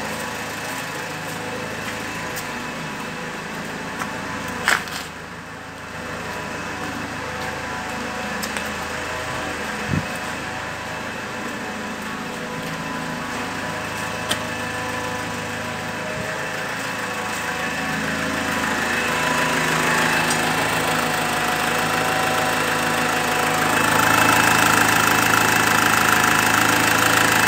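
Opel Vivaro's 1.9-litre four-cylinder turbodiesel (F9Q762) idling steadily, growing louder over the last several seconds. A few sharp clicks sound over it in the first half.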